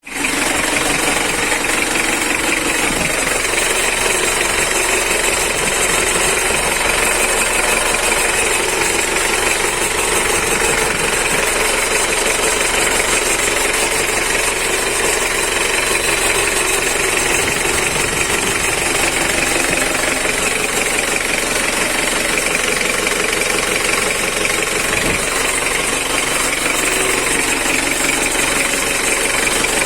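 1995 Isuzu Panther diesel engine running steadily with a fast, even clattering knock. This is the strange noise the owner is checking.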